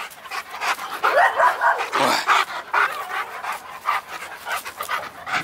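Rottweiler panting hard with its tongue out after running and playing, in quick irregular breaths.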